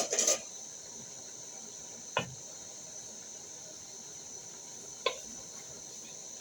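Cookware clattering against a cooking pot, loudest right at the start, then two single light clinks that ring briefly, about two seconds and five seconds in, over a steady faint high hiss.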